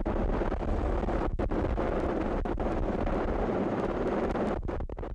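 Helicopter engine and rotor noise with wind buffeting the microphone, steady and loud, with a few brief gaps, dropping away near the end.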